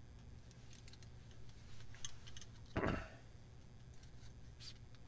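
Light clicks and taps of plastic parts on a small electric spinning wheel's frame as the tension components are slid along it, with one louder knock about three seconds in.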